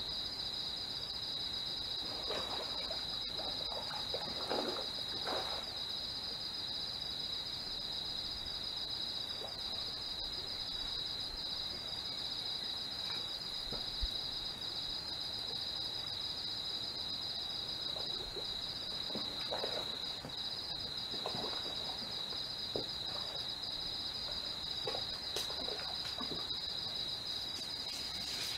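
A night-time insect chorus: a steady high-pitched trilling with a fast, even pulse. Soft, scattered knocks and rustles come through underneath now and then.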